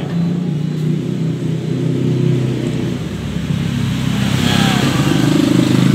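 An engine running steadily, getting a little louder after about four seconds.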